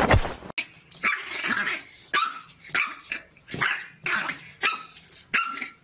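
A French bulldog puppy barking and yapping in quick, high-pitched bursts, about two a second, at its own reflection in a mirror. A brief scraping rattle of a wooden toy box comes first, cut off suddenly as the barking starts.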